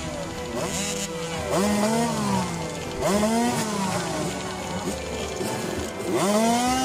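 Several small dirt-bike engines idling and being revved in short throttle blips, each one rising then falling in pitch, every second or two. This is typical of riders holding their bikes ready at the start gate.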